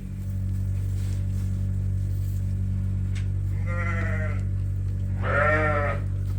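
Lambs bleating: two quavering bleats, one about three and a half seconds in and a louder one about a second later, over a steady low hum.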